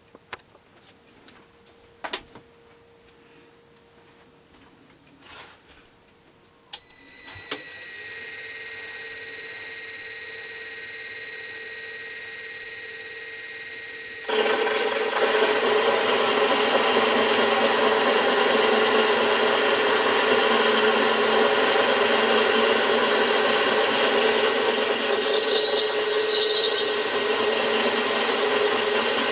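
A few clicks, then the spindle motor of a homemade benchtop vertical milling machine starts suddenly about a quarter of the way in and runs steadily with fixed high tones. About halfway through, a much louder, steady cutting noise joins as a 25 mm five-flute high-speed-steel roughing end mill, turning at about 300 rpm, cuts into 6061 aluminium plate.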